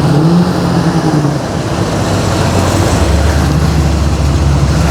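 Car engine running close by, its pitch rising and falling in the first second, then settling into a deeper, steady low rumble from about three seconds in.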